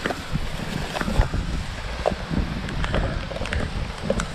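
Thin plastic bag crinkling and rustling as it is handled, over low wind buffeting on the microphone.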